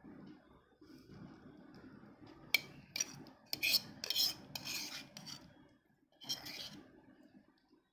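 Metal spoon scraping and clinking against dishes as chicken masala is spooned onto layered biryani. Several sharp scrapes come in quick succession from about two and a half to five and a half seconds in, with one more near the end over a soft rubbing of food.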